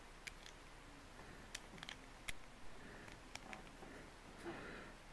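Faint, scattered clicks of plastic LEGO bricks being handled and fitted together.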